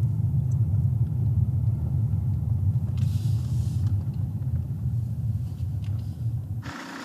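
A car's steady low rumble of engine and road noise. Near the end it gives way to a brighter hiss.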